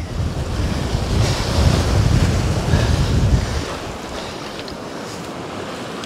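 Waves breaking and washing up a pebbly shore, with strong wind rumbling on the microphone. The low wind rumble drops away about three and a half seconds in, leaving the steady hiss of the surf.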